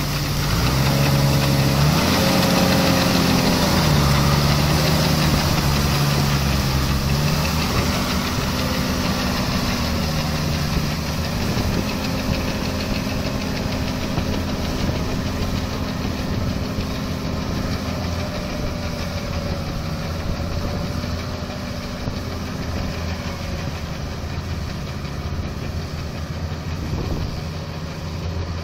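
Farm tractor's diesel engine running as it drives a rear rotary tiller through a flooded paddy field. The engine pitch steps up and down over the first several seconds, then holds steady, the sound slowly fading as the tractor moves away.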